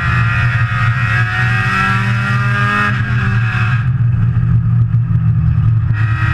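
Saturn S-Series four-cylinder race car engine heard from inside the cockpit, running hard with its note rising slowly. It eases off about four seconds in and comes back on near the end.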